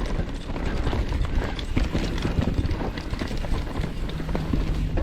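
Mountain bike riding down a rough dirt trail: rapid, irregular knocks and rattles from the bike over bumps, over a continuous low rumble. A steady low hum comes in near the end.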